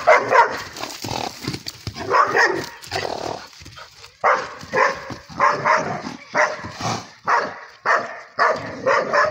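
A dog barking aggressively at a horse: a few loud barks early on, then a fast, unbroken string of barks about two a second through the second half.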